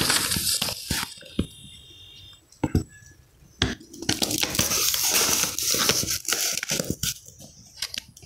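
Stiff, crinkly gele fabric being handled and crumpled close to the microphone, rustling and crackling. The sound comes in two spells: one at the start and a longer one from about four seconds in, with a quieter gap of a couple of seconds and a few single crackles between them.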